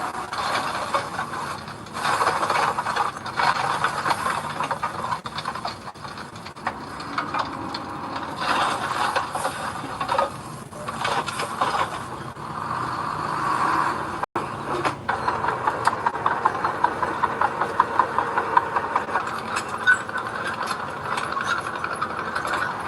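Bulldozer at work: engine running under the steady rattle and clank of its steel tracks. The sound drops out for an instant about fourteen seconds in.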